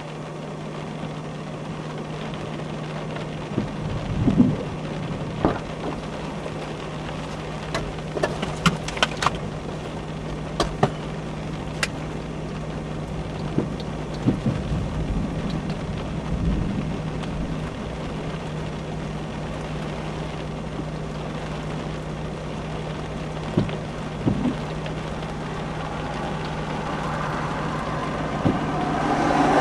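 Scattered raindrops tapping sharply on a vehicle's windshield and roof over a steady low hum inside the cabin, with a couple of low rumbles.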